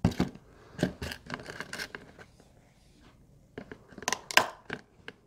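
Clear plastic enclosures being handled: a sharp knock at the start, a few clicks about a second in, and a cluster of clicks and scrapes near the end, the loudest about four seconds in.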